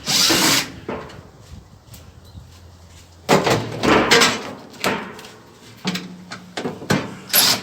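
A microwave oven's door and glass turntable tray being handled: a scrape at the start, then a run of knocks and clatters with a little ringing about three to five seconds in, and another knock near the end.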